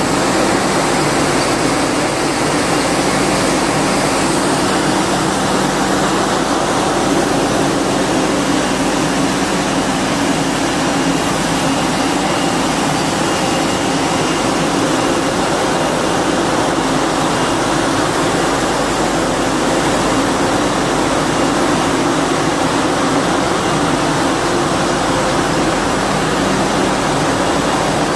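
Steady machinery noise from a running glass-frosting production line: an even rushing noise with a faint low hum under it.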